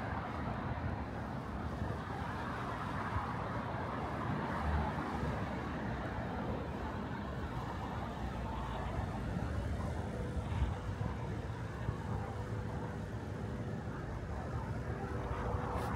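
City road traffic: cars passing on a street in a steady, continuous rumble. A faint steady tone joins in during the last few seconds.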